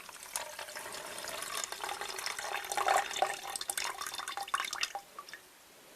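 A cup of concentrated lemon tea being poured onto sugar in a pot, splashing and trickling for about five seconds before stopping.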